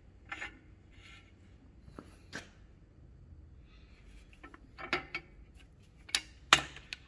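Scattered light metal clicks and knocks, with a little scraping, as steel parts and a drill socket are handled on a differential housing; the cordless drill is not running.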